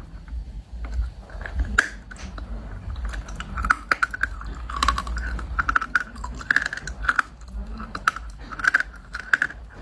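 Dry chunks of blue Uzbek clay crunching and crackling, a steady run of sharp, brittle cracks and crumbling snaps.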